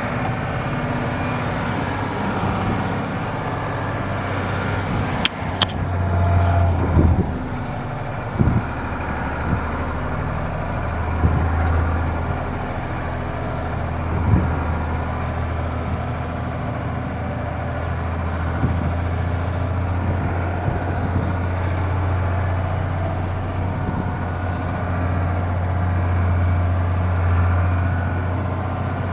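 Mercedes-Benz Unimog U2450 6x6's diesel engine running steadily under load as the truck crawls through boulders, with a few knocks and clunks from the chassis along the way.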